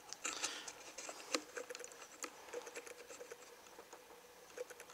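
Faint handling noise from a handheld camera being moved: irregular light clicks and taps, a few in the first couple of seconds and fewer after that.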